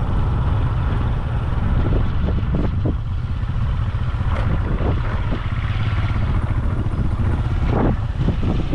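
A vehicle on the move, with heavy low wind rumble on the microphone and a few brief knocks.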